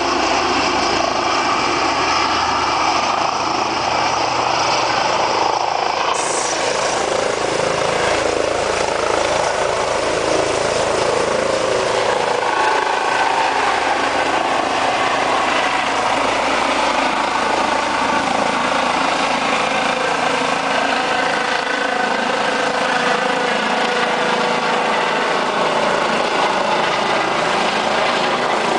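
Eurocopter EC135 twin-turbine helicopter lifting off from a low hover and climbing away. Its rotors and turbines make a steady, even rush of noise with a faint whine running through it.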